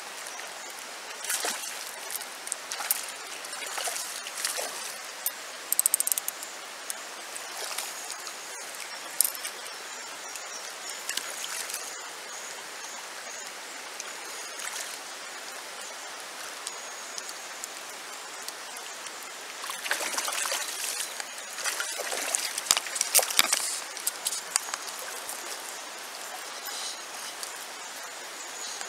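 Shallow, clear river running over stones: a steady rush of flowing water with irregular louder bursts of splashing and gurgling, busiest about two-thirds of the way through.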